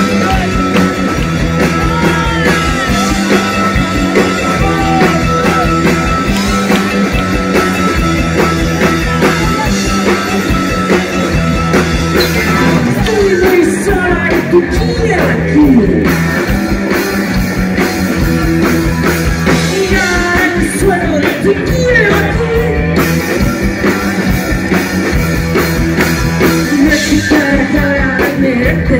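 Live rock band playing, with electric guitar, bass, drums and a woman singing, heard loud and steady with a driving beat.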